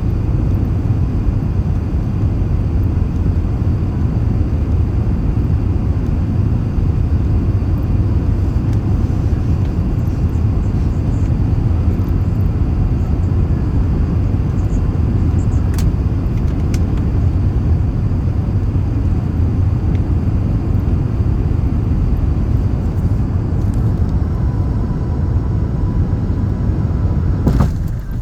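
Steady low rumble of airflow and engine noise inside the cabin of an Airbus A380 during its landing. A faint high tone sounds for a few seconds near the end, and just before the end the noise shifts suddenly with a brief knock.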